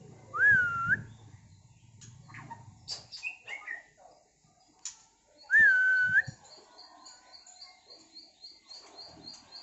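Male white-rumped shama (murai batu), just through its second molt, giving two loud whistled notes about five seconds apart, each rising then held level, with softer short chirps and clicks between. These are short calls rather than full song, typical of a shama still coming back into song after molting. A faint, even run of high ticks, about four a second, goes on through the second half.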